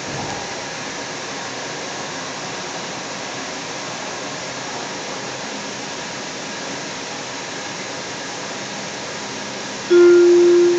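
Steady running noise of a light rail car moving along the track, heard from inside the car. About ten seconds in, a loud single steady tone sounds for under a second: the onboard chime ahead of the automated station announcement.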